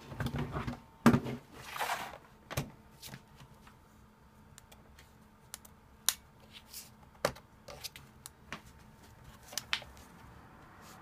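Plastic knocks and clicks of a laptop being handled and turned over, with a sharp knock about a second in and a brief scrape just after, then scattered light clicks and taps as fingers work at the battery latch on its underside.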